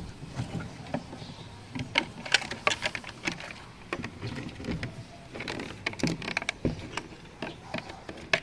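Hand work fitting a car's fuel pump and filter assembly: a series of irregular sharp clicks and knocks of parts being handled and pushed into place, busiest about two to three seconds in and again near six seconds.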